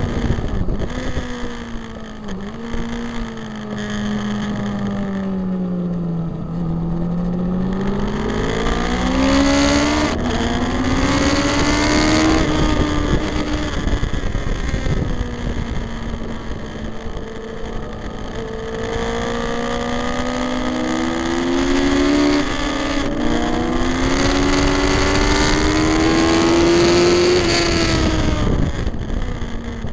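2003 Yamaha R1's inline-four engine running hard at high revs, with wind rush behind it. The pitch sinks over the first several seconds, climbs again, holds steady for a few seconds, rises once more, and drops near the end.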